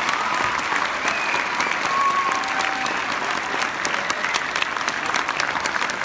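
Audience applauding steadily, with a few brief voices calling out over the clapping.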